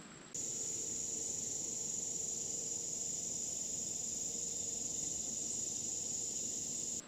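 Steady high-pitched insect chorus, such as crickets or katydids, that comes in suddenly a moment in and cuts off just before the end.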